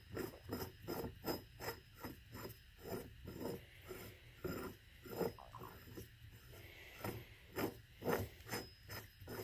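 Steel cylinder of a hydraulic bottle jack being screwed by hand into the jack base: tight metal threads scraping in short, regular strokes, about three a second.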